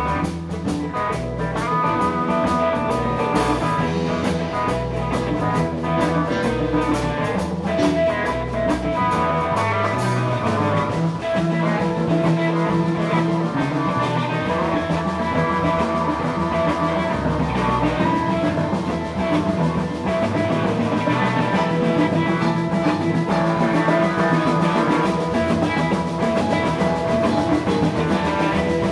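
Live rock band playing: electric guitar, keyboards and drums, with busy cymbals for about the first ten seconds.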